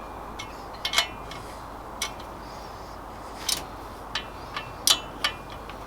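Metal tools and engine parts being handled, giving about eight short, sharp clicks and clinks at irregular intervals.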